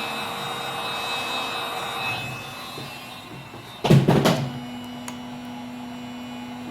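Electric heat gun's blower running with a steady whine, then dying away after about two and a half seconds, softening the old screen's adhesive. A short loud clatter about four seconds in.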